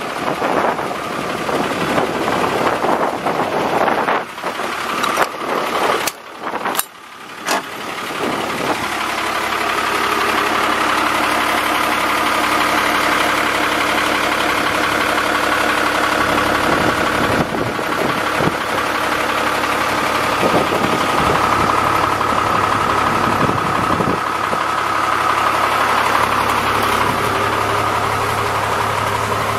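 A 2000 Freightliner fuel truck's diesel engine idling. The sound dips twice about six to seven seconds in, then holds a steady drone.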